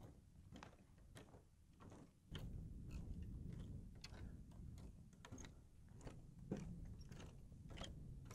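Footsteps of sneakers on a wooden plank boardwalk, a light step about every half second. A low rumble sits under them from about two seconds in.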